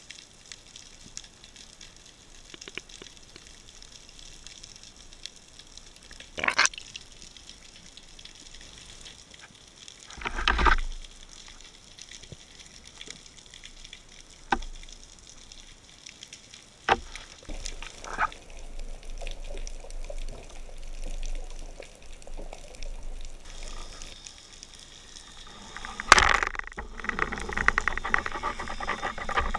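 Underwater ambience during a spearfishing dive: a steady water hiss broken by several sharp clicks and knocks, with a duller thump about ten seconds in. The sharpest click comes near the end, and after it the water noise turns louder and busier.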